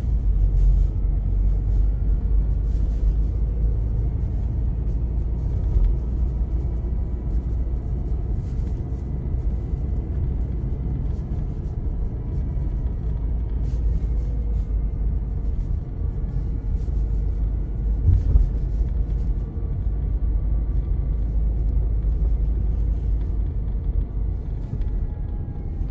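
2013 Mazda 6 driving, a heavy low rumble with a faint high-pitched whine over it that slowly rises and falls in pitch as the car accelerates and decelerates.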